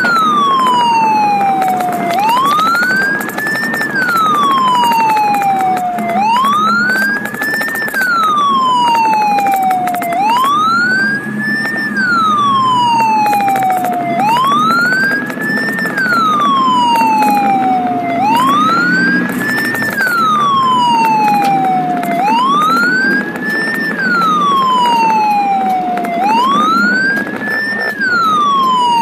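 Ambulance siren wailing, heard from inside the cab: each cycle rises for about two seconds and falls for about two, repeating every four seconds. Under it is the steady engine and road noise of the moving ambulance.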